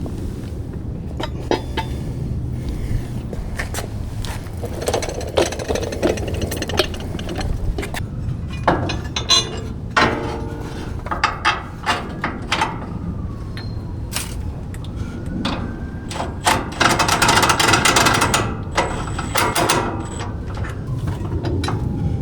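Hand tools and steel suspension parts clinking and knocking in a string of irregular metallic taps, with a longer stretch of rapid rattling, like a ratchet or wrench working, near the end, over a steady low hum.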